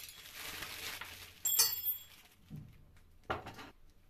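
Clear plastic bag crinkling as it is opened and handled, with one sharp crackle about a second and a half in, then two brief softer rustles before it goes quiet.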